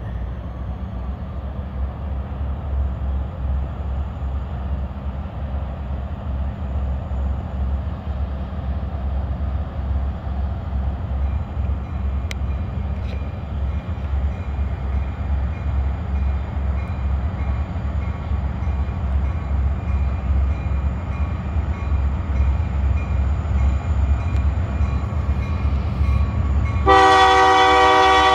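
Approaching diesel locomotive: a steady low engine rumble slowly growing louder, then, near the end, its air horn sounds a loud multi-note blast.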